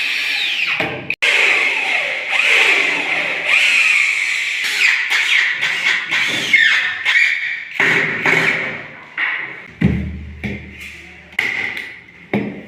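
Power drill running, its motor whine rising and falling in pitch, then stopping and starting in shorter runs in the second half.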